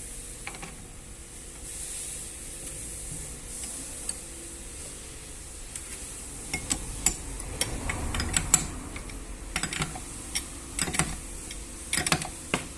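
A wrench works the nut on a bolt-and-nut puller that draws the steering rack shaft out through its bushing, making metal clicks and scrapes. The clicks start about halfway and come thicker toward the end.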